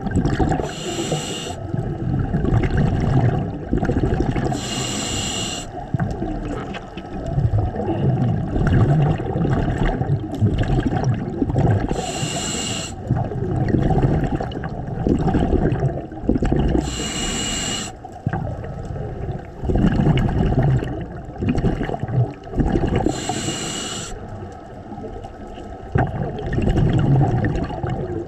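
Scuba diver breathing through a regulator underwater: six short hisses of inhaled air from the regulator, a few seconds apart, with the bubbling of exhaled air between them.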